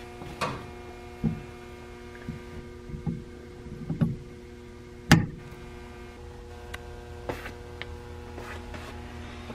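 Light knocks and clicks as a stator is handled and pressed into place on a snowmobile engine's crankcase, the sharpest about five seconds in, over a steady electrical hum.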